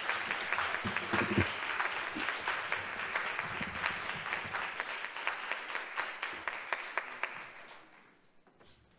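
Audience applauding at the end of a talk, a dense clatter of many hands that dies away over the last second or two.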